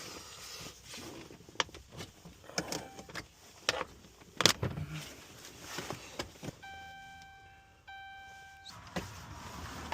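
A scatter of small sharp clicks and knocks from parts and tools being handled during a car key or lock job. A bit past the middle come two long, steady electronic beeps, one right after the other.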